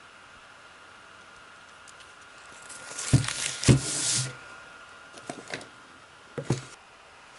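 Tissue paper rustling with two soft thumps about three seconds in as a camera body is set down on it, then a few light taps and a knock from a cardboard box being picked up and handled.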